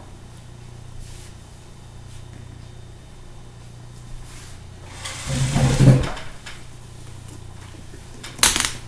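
Rustling of a leather handbag and its strap against a sweatshirt as the bag is handled and lifted, swelling for about a second around five seconds in, with a short click near the end over a low steady hum.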